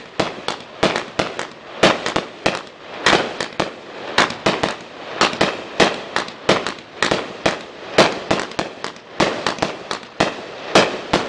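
Black Scorpion Gold Crown, a 30-shot 500-gram consumer firework cake, firing in rapid succession: a string of sharp bangs, about three a second, as its shots lift and burst.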